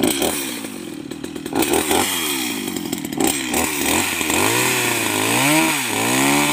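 Stihl MS 250 two-stroke chainsaw with a new chain, its engine pitch rising and falling several times as the throttle is worked. Near the end it holds a steadier high pitch as the chain cuts into a log.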